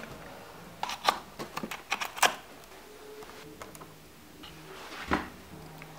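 Handling noise from computer cables and plugs being worked by hand: a quick run of sharp clicks and knocks about a second in, then a single brushing thump near the end.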